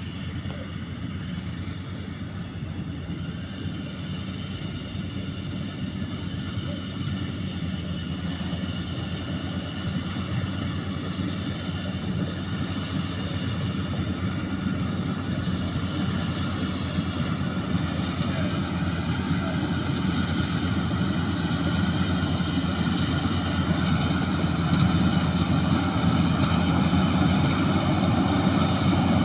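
Bimo Maxxi 102 combine harvester running steadily, with a low engine rumble and a steady whine of higher tones, growing gradually louder as it works.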